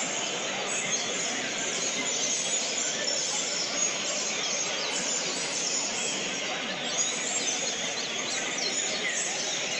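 Many songbirds singing at once in overlapping chirps and phrases, over a low, steady murmur of voices.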